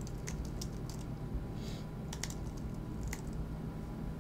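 Computer keyboard typing in scattered keystrokes that stop about three seconds in, over a steady low hum.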